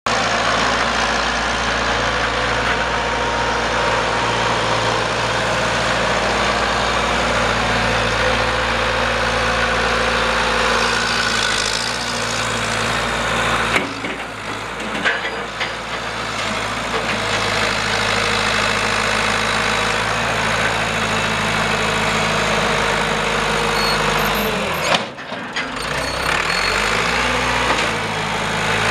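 Perkins A4.248 four-cylinder diesel of a 1994 Massey-Ferguson 50EX tractor running steadily. Its sound dips briefly about halfway through and again near the end, where the pitch sags and recovers.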